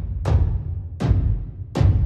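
Outro music: sharp percussive hits about every three quarters of a second over a steady low bass.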